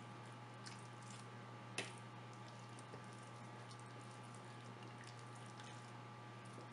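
Faint wet squishing and small ticks of a hand rubbing spice marinade into raw chicken breasts on a plate, with a sharper tick about two seconds in, over a steady low hum.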